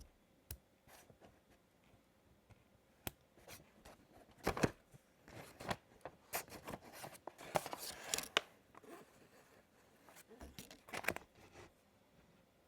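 Packaging being handled: irregular clicks and taps with short rustling and tearing sweeps of paper or plastic wrapping, busiest in the middle of the stretch.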